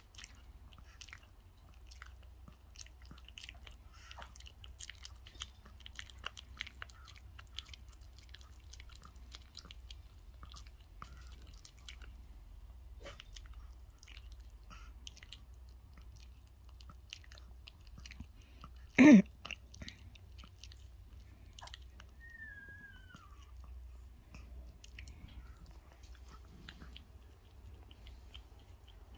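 Small dog chewing and biting raw chicken, a steady run of small wet crunches and clicks. About two-thirds of the way through there is one brief, loud bump.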